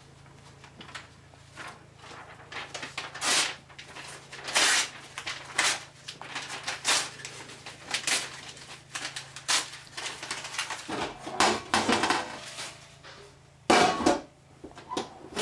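Sheet of paper being torn into pieces: repeated sharp rips, about one a second. Near the end comes a louder clatter from the lid of a metal trash can.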